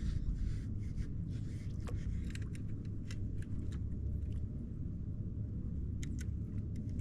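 Steady low wind rumble on the microphone, with scattered light clicks and taps, a cluster a couple of seconds in and a pair near the end.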